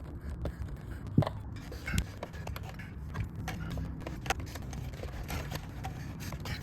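Scattered small clicks and taps of metal parts and tools being handled while a new spring and screw are worked into an aircraft baggage door latch, the sharpest click about a second in, over a low steady hum.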